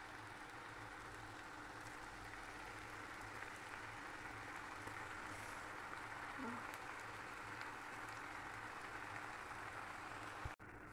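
Potato pieces frying in hot oil: a steady sizzle of bubbling oil. It drops out for an instant near the end.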